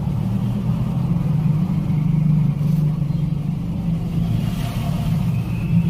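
Steady low machine hum, running evenly throughout.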